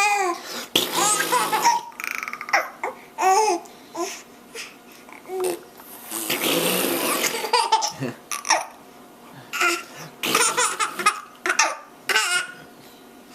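A baby giggling and laughing in many short high-pitched bursts. About six seconds in comes a fart sound, a noisy stretch lasting about a second and a half.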